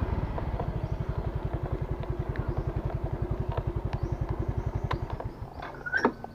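Motorcycle engine idling with an even low putter of about ten beats a second, then cut off about five seconds in. A few sharp clicks follow near the end.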